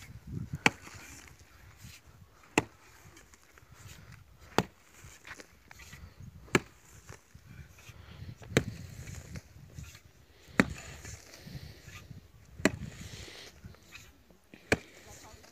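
Pick mattock striking hard, dry clay ground, eight sharp blows about two seconds apart.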